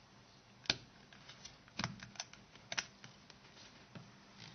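Small sharp plastic clicks and taps, about half a dozen at irregular intervals, as the plastic clips holding the antenna of a Nokia 6680 mobile phone are unlocked and the antenna is lifted out.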